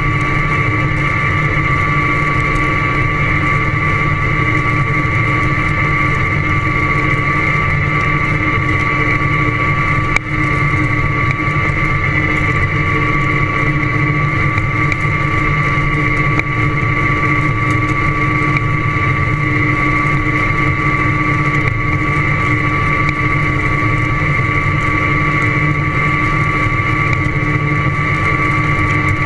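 Tractor running steadily while driving across corn stubble: a low engine rumble under a steady high-pitched whine, unchanging throughout.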